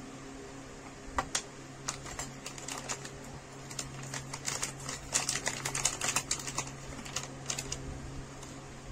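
Plastic zip bag crinkling and crackling as it is opened and handled, with sharp clicks of small plastic parts, in irregular bunches from about a second in until near the end, over a steady low hum.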